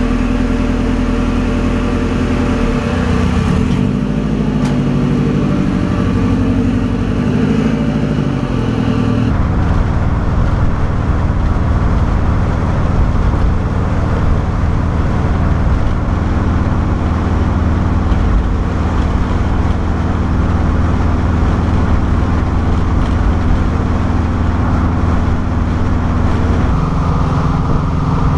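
Split-window VW bus with a swapped-in turbocharged Subaru WRX flat-four engine. For the first several seconds the engine revs, its pitch rising and falling. About nine seconds in the sound changes abruptly to a steady engine and road drone heard from inside the cab while driving.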